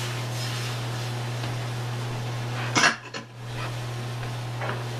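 Half-and-half poured into a hot sauté pan of butter, mushrooms and peppers, with a soft hiss from the pan over a steady low hum. A single sharp clatter of kitchenware comes near the three-second mark.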